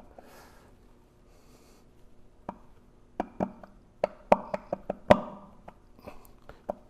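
Irregular sharp metal clicks and light knocks, starting about two and a half seconds in, as seal parts are worked by hand into the shaft-seal bore of a Vilter VSS single screw compressor.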